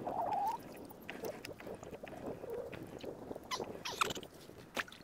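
A brief muffled vocal sound at the start, then faint water sloshing against a kayak, with scattered small knocks and clicks from the hull and fishing tackle.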